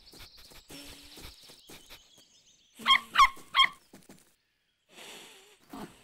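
Three quick, high-pitched cartoon animal calls, a small animal's yips or squeaks, after a run of light ticking taps, with a soft breathy sound near the end.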